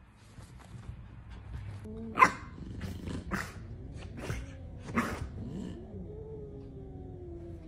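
A French bulldog giving four short, sharp barks about a second apart, with grumbling whines between them that end in one long, slightly falling whine.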